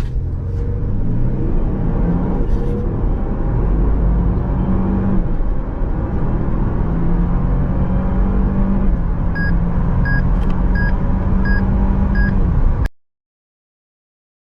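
Toyota Land Cruiser engine pulling hard under acceleration, its note climbing in steps. About six short, evenly spaced beeps sound over it near the end, and the sound then cuts off suddenly.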